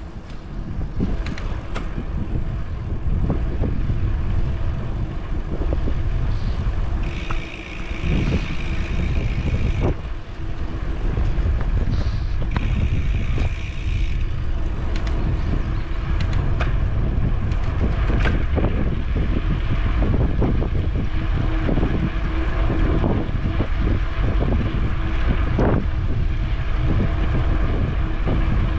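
Wind buffeting the microphone and tyre rumble on asphalt from a moving bicycle, a steady low rumble throughout. Twice, about a quarter of the way in and again near halfway, a steady high-pitched buzz runs for a few seconds.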